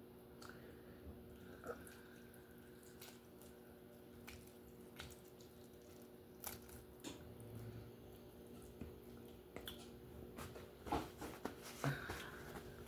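Faint wet eating and handling sounds from a cooked lobster: scattered small clicks and squishes, busier near the end. A steady low hum runs underneath.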